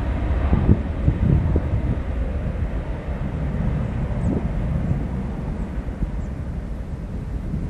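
Boeing 767 jet engines at take-off thrust during the take-off roll, heard as a steady low rumble. A few low thumps of wind hit the microphone.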